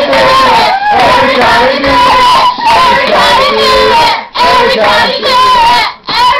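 A group of people singing and shouting loudly together in a chant, with short breaks a little after four seconds and again just before the end.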